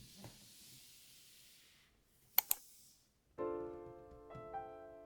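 A soft hiss, then two sharp clicks in quick succession about two and a half seconds in, then gentle piano music begins with sustained chords.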